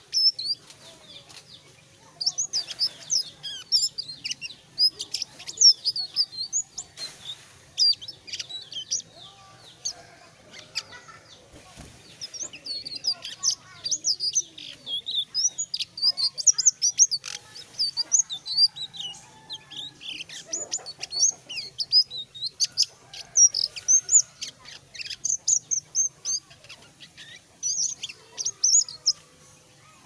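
A caged selendang biru songbird singing in its full, freely flowing 'gacor' voice: runs of quick, high, sweeping chirps and whistles, broken by a few short pauses.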